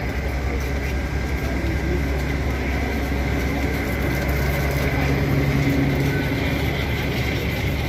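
Long-distance passenger train's cars rolling slowly past along the platform: a steady low rumble with a constant hum over it, and a low pitched tone that swells in the middle.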